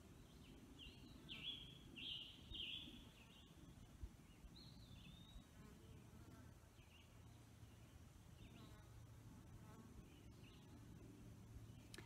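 A songbird, which the listener thinks is a scarlet tanager, singing close by in short phrases. The phrases come in a quick run during the first few seconds, then a few more spaced out, over quiet woodland background.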